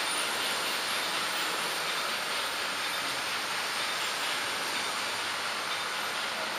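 Märklin HO-scale model train running along the metal track, a steady rolling hiss of small wheels on the rails.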